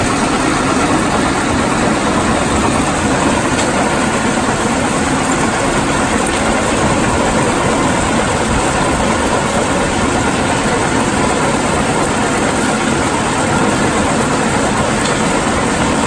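Yongwon SP300 Super cone crusher (M type) running at 1050 rpm and crushing rock fed into its bowl, heard together with the plant's feed conveyor: a loud, steady mechanical din with no let-up.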